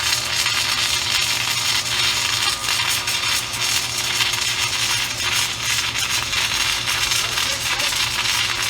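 Submerged arc welding in progress: a steady, dense crackling hiss from the arc burning under its blanket of flux powder, over a low steady hum.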